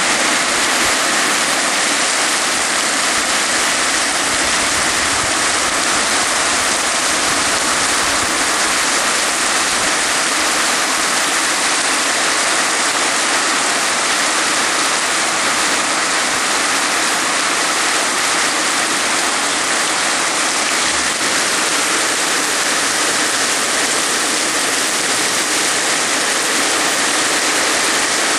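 Heavy rain pouring steadily: a dense, even hiss that holds without a break.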